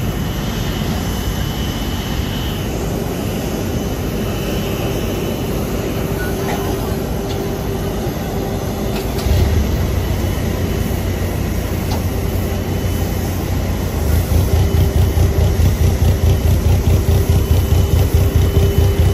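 Steady apron machinery hum with a faint whining tone. About nine seconds in, a deep engine rumble from an aircraft pushback tug drawing up close comes in, and from about fourteen seconds it pulses at a regular beat.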